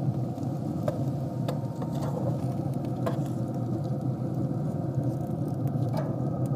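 Traeger wood-pellet grill running with a steady low hum, while metal tongs turn thick-cut sweet potato fries on its grate with a few light clicks.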